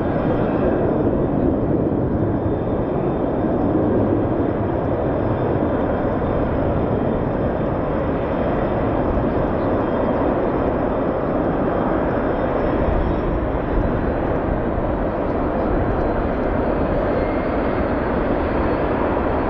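Jet engine noise of two fighter jets climbing away just after takeoff, a steady, loud rush of noise that holds at one level throughout.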